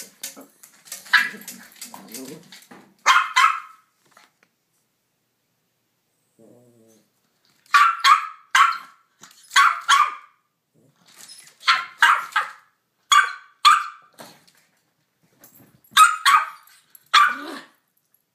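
Yorkshire terrier barking: about a dozen short barks, mostly in quick pairs, with a pause of a few seconds after the first few.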